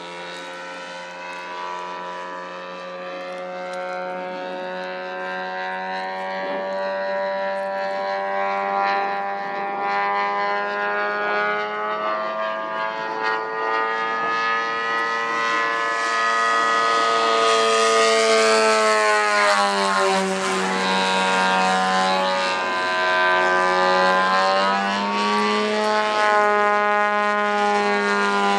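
Large RC aerobatic plane's DLE-222 petrol engine and propeller running in flight, a steady drone whose pitch rises and falls slowly. It grows louder over the first several seconds, peaking past the middle.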